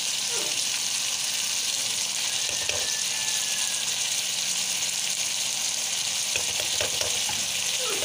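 Chicken pieces sizzling steadily in hot oil in a karahi, with a few scrapes of a spatula against the pan in the second half.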